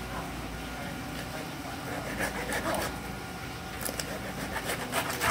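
Knife cutting along a whole sailfish's skin and flesh, with a run of sharp scraping clicks in the last second or so, the loudest at the end, over a steady low machine hum.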